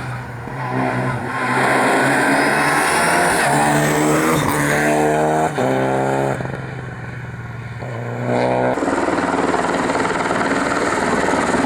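A rally car's engine at full throttle, the revs climbing and breaking off several times as it shifts up through the gears. It dips quieter for a second or two past the middle, then picks up again.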